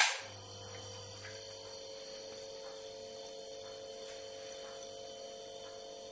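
Electrolux HTK7070AA hermetic refrigeration compressor switched on with a sharp click, then running with a steady hum and a faint high whine.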